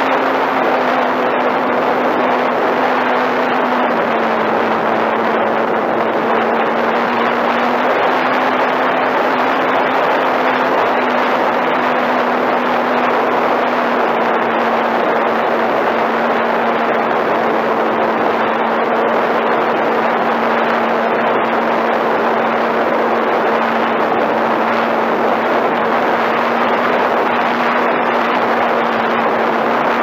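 Radio-controlled model airplane's motor and propeller heard from the onboard camera: a steady hum that drops slightly in pitch a few seconds in, under a loud rushing hiss of air over the airframe and microphone.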